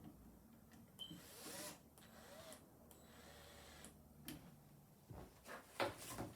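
Quiet handling of a wall light switch and screwdriver as the switch's mounting screws are backed out in the electrical box: a few small clicks, a brief rustle about a second in, and a quick run of taps near the end.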